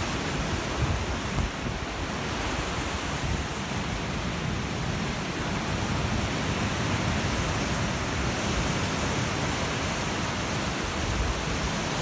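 Ocean surf washing and breaking on rocks, a steady rushing hiss, with wind rumbling on the microphone.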